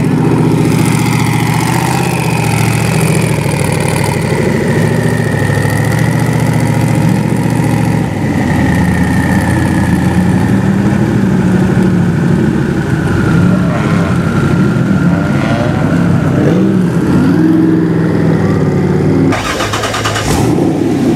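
Heavily modified C6 Corvette's V8 running at low speed and then idling, its note wavering and rising and falling unevenly, with a thin whine above it.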